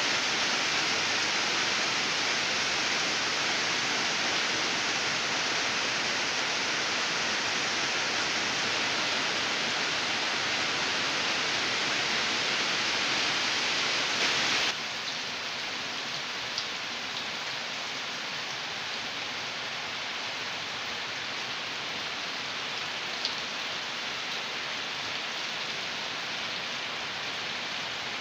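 Heavy rain falling steadily on garden foliage and ground, an even hiss of rain. About halfway through it drops abruptly to a somewhat quieter level, with a couple of faint ticks later on.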